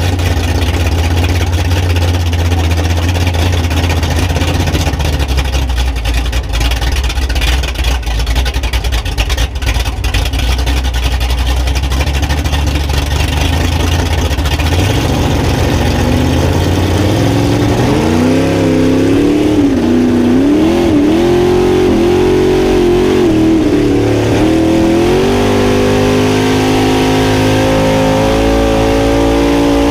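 Mega truck's engine heard close up from beneath the truck: idling low and steady, then about halfway through the revs climb and waver up and down before holding at a higher, steady pitch as the truck moves off down the track.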